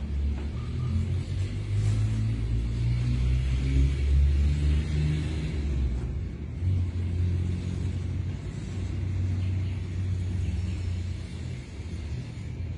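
A motor vehicle engine running with a low rumble on the street, its pitch shifting about six seconds in.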